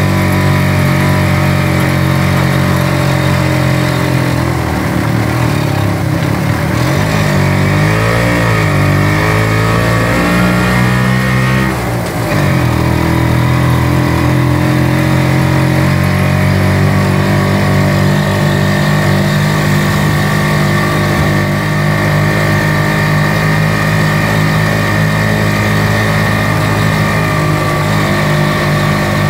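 Kawasaki HD-III's two-stroke single-cylinder engine pulling a motorcycle sidecar tricycle on the move. The revs rise and fall, dip briefly near the middle, then hold steady.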